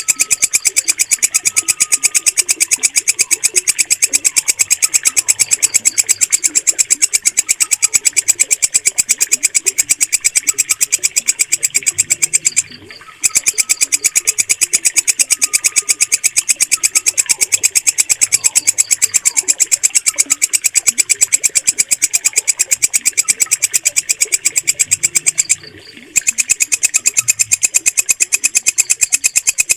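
Walang kecek, a green katydid, calling in a loud, very fast, unbroken buzzing trill that stops twice for about half a second. Faint bird chirps sound underneath.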